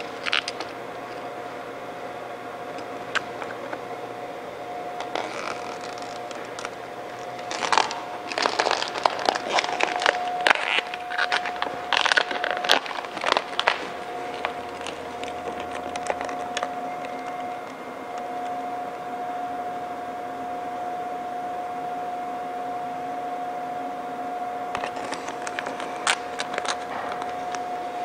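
Chrome vinyl wrap film being handled and worked onto a grille: clusters of crackling and scraping in the middle of the stretch and again near the end, over a steady hum.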